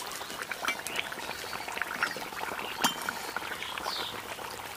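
Aloo chops deep-frying in hot oil in a kadai, the oil sizzling and crackling steadily, with one sharper click just under three seconds in.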